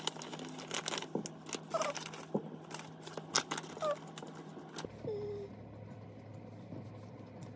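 Plastic packet of cocktail sausages crinkling and rustling as the sausages are shaken out onto a plastic cutting board, with many light knocks and a few brief faint squeaks; it quietens after about five seconds.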